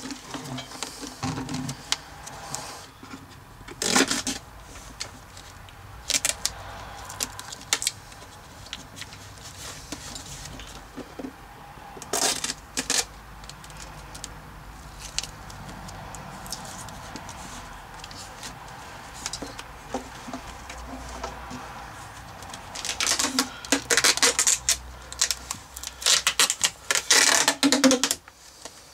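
Duct tape being pulled off the roll and wrapped round a plastic vacuum hose and hairdryer joint: short bursts of rapid crackling as the tape peels off, with a longer, denser run near the end.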